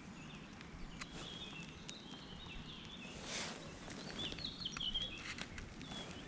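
Small birds chirping at intervals over a quiet background, with a brief hiss about three seconds in and scattered light clicks.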